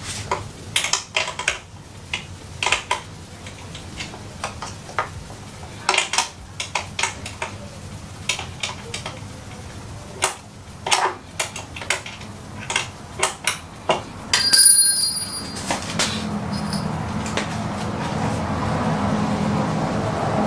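Irregular clicks, taps and clinks of hands working on a motorcycle's rear fender area, plastic tail parts and metal fittings being handled and pulled loose. About three-quarters through comes one louder clink with a brief ring, after which a steady low hum comes in and holds.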